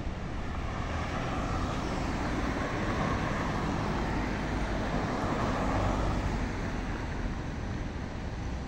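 Road traffic noise that swells as a vehicle passes about midway and then eases off, over a steady low rumble.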